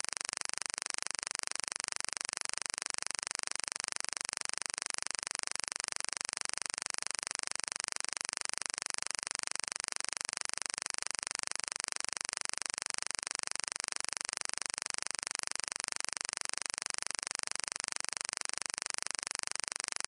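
A steady, unchanging hiss of electronic noise, like static, with no music or voice in it; it starts and stops abruptly between music tracks.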